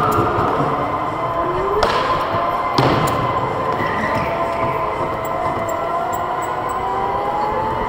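Electric go-kart motors whining, their pitch gliding up and down as the karts speed up and slow down, with two sharp knocks about two and three seconds in.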